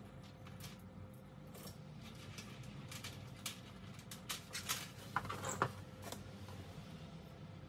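Faint, scattered light clicks and small scratchy ticks over a steady low hum, the clicks bunching together around the middle.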